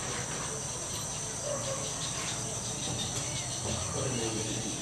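Steady chorus of insects at dusk, an even high-pitched buzz.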